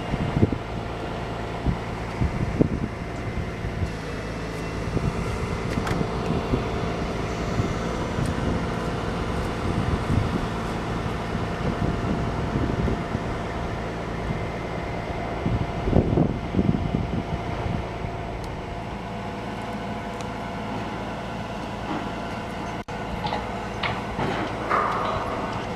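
An engine running steadily, with scattered knocks and clanks of metal; the sound breaks off abruptly about 23 seconds in, then continues with sharper, higher clatter.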